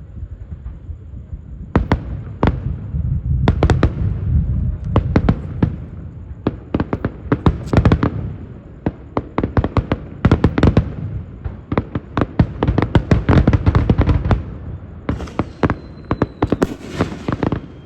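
Aerial fireworks going off in a rapid barrage: many sharp bangs in quick succession over a low rumble, starting about two seconds in. A hissing crackle rises near the end.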